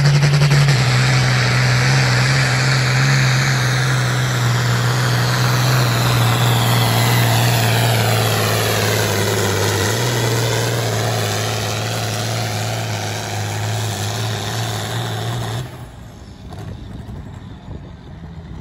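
International 1066 tractor's diesel engine running flat out under heavy load as it drags a pulling sled, its pitch dropping in steps as it lugs down. The engine sound falls away abruptly near the end.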